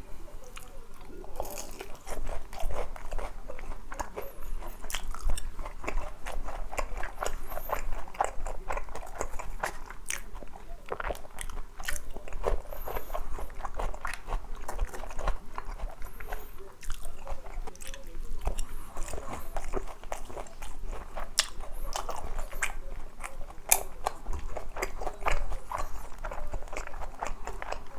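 A person biting and chewing crispy glazed boneless fried chicken, with irregular crunches all through.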